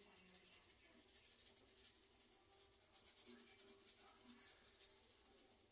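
Near silence, with faint rustling of seasoned breadcrumbs being shaken from a canister onto a casserole.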